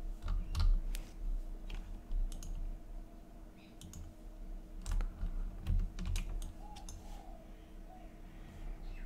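Computer keyboard keys and mouse buttons clicking in irregular taps, over a faint steady hum.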